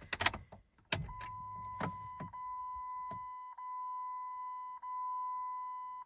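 A few clicks as the key is turned, then the Jeep Grand Cherokee's dashboard warning chime: a steady high electronic tone that starts about a second in and keeps going, broken by short gaps about every second and a quarter.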